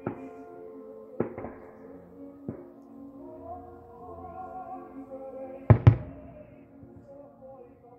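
Aerial firework shells bursting with sharp booms, a few lighter ones early and a loud pair close together near six seconds in, over music playing throughout.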